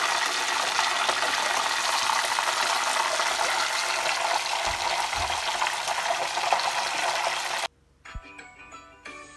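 Breaded chicken cordon bleu deep-frying in hot oil, a loud, steady sizzle. Near the end it cuts off abruptly and quieter music with short pitched notes begins.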